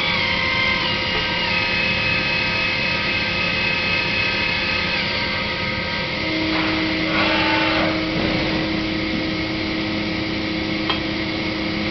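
Mazak Variaxis 630-5X five-axis CNC mill running under power. Its steady motor whine steps down in pitch a couple of times, and a lower hum comes in about halfway. A brief noisy rush follows, and there is a single click near the end.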